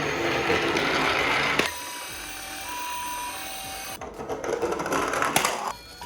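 Small toy vehicle mechanism whirring and rattling as the toy is run, in two spells with a quieter stretch between, and a few sharp clicks near the end.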